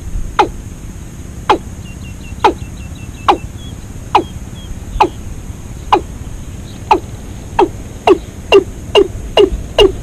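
A bird call repeated over and over: short, sharply falling notes about once a second that quicken to about two a second near the end. Faint high chirps of another small bird come in around the middle, over a low steady rumble of wind.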